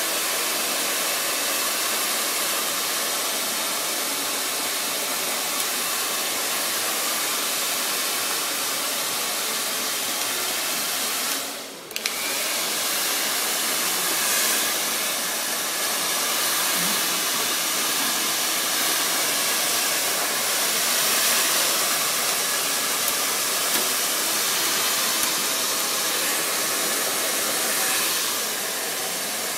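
Handheld blow dryer running steadily as it dries a dog's coat, cutting out for a moment about twelve seconds in.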